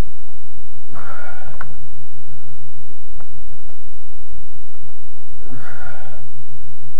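A man breathing out hard and wheezily twice, about a second in and again near six seconds, as he strains through heavy dumbbell reps. A loud steady low hum runs underneath.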